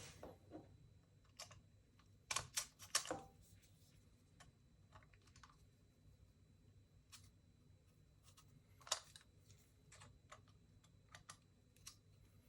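Sparse small clicks and taps of a Volkswagen key fob's plastic casing being handled and opened, with a cluster about two to three seconds in and another about nine seconds in.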